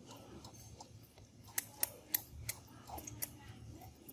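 Baby monkeys sucking milk from plastic feeding bottles: soft suckling noise with a handful of sharp wet clicks and smacks in the middle.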